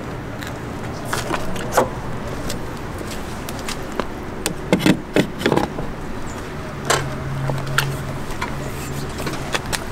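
Clicks and knocks of a Level 2 EV charging connector being handled and pushed into a Chevy Bolt's charge port, with a cluster of sharp clicks a little before halfway and another click about seven seconds in. A steady low hum starts with that later click and continues.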